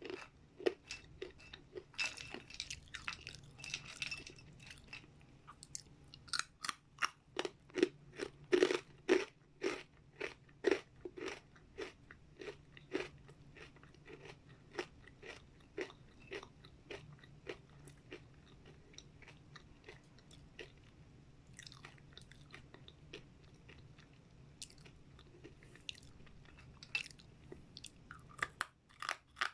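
A mouth chewing crunchy dried vegetable and fruit chips, a quick run of sharp crunches. The crunches are thickest and loudest in the first half and thin out to occasional bites later.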